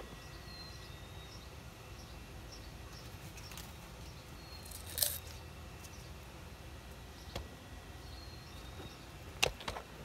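Steady low ambient rumble with faint, scattered bird chirps, broken by a few sharp clicks: the loudest about halfway through, a single one later, and two close together near the end.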